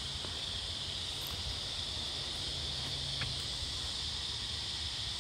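Steady, high-pitched chorus of insects in bushland, with a low rumble underneath and a couple of faint clicks.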